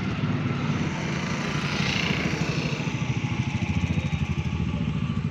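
A nearby engine running steadily at a constant speed, a fast even chugging.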